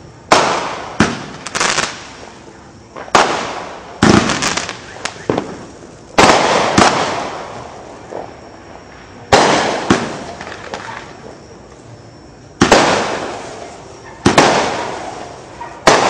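Aerial fireworks bursting in a string of loud sharp bangs, one every second or two, each followed by a fading echo.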